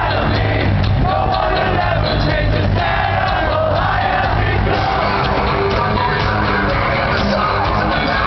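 A rock band playing live and loud: drums and band with a male singer's voice over them.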